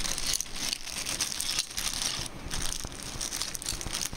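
Clear plastic bag crinkling and crackling as it is handled and squeezed by hand.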